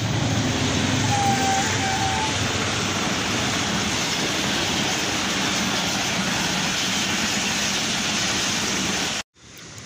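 Passenger train passing close by at speed: a steady rush of coaches and wheels on the rails, with two short faint tones a little over a second in. It cuts off abruptly near the end.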